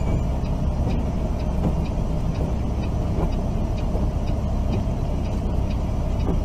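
Semi-truck running down the road, heard inside the cab: a steady low rumble of engine and road noise.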